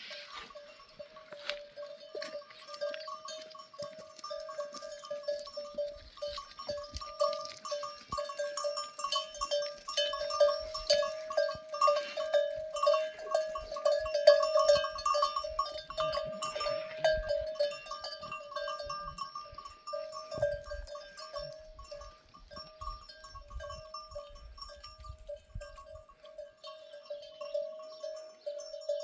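Bells on a flock of sheep and goats ringing continuously as the animals move, a dense overlapping jangle that swells in the middle and thins toward the end.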